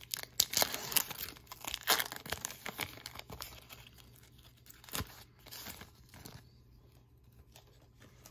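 Foil trading-card pack wrapper being torn open and crinkled by hand, busiest in the first three seconds, with a sharp click about five seconds in and quieter handling after.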